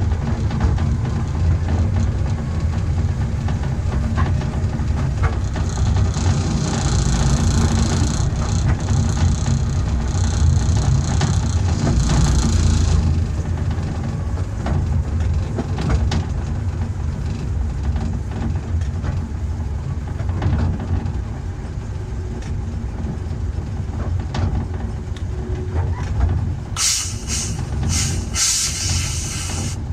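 Ruislip Lido Railway's 12-inch-gauge miniature train running along the line, a steady low rumble of wheels on rail. A hiss rides over it from about six to thirteen seconds in, and short sharp hissing bursts come near the end.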